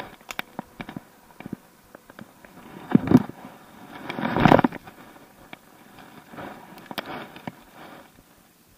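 A spinning rod and reel handled and cast, with a scatter of light clicks, then two louder rushing swells of rustling and whooshing about three and four and a half seconds in, followed by softer rustling.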